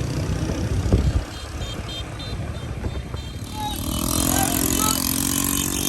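Motorbike engine running on the road with wind noise, surging louder about a second in.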